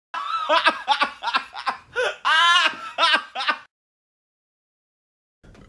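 A person laughing in a high pitch, a quick run of short laughing bursts for about three and a half seconds that stops abruptly.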